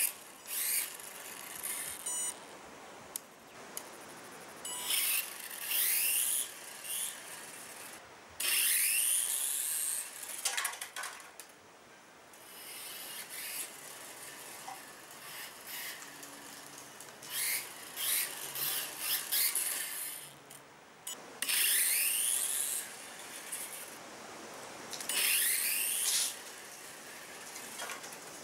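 A micro RC car's small electric motor and gears whining in repeated short bursts, rising and falling in pitch as it speeds up and brakes. Its tyres scrub on the concrete floor in between.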